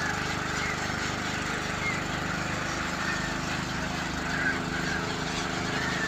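A large flock of gulls calling, short scattered cries over a steady low engine hum.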